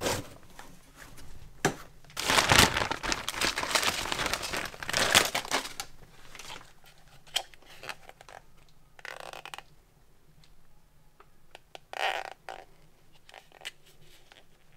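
Clear plastic bag crinkling and rustling as a new blower motor is pulled out of it, loudest for a few seconds about two seconds in. After that come scattered light clicks and short rustles of the plastic part being handled.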